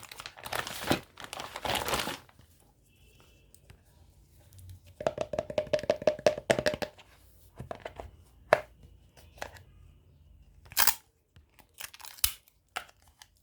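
Toy packaging being torn and crinkled open, with a longer rasping tear about five seconds in, followed by scattered sharp clicks and taps.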